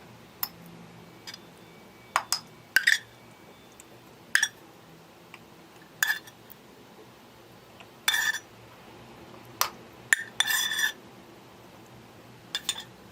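A spoon clinking against a glass jar about a dozen times at uneven intervals as the cooked mixture is spooned into it. Two of the clinks, about 8 seconds in and about 10 seconds in, run longer with a ringing scrape.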